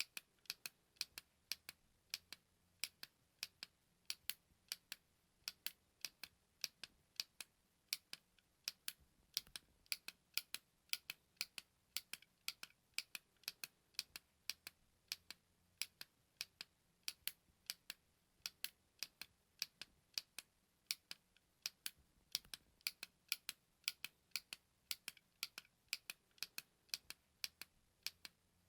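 A small push-button clicking over and over, a few sharp clicks a second at an uneven pace, many coming in close pairs like a press and release.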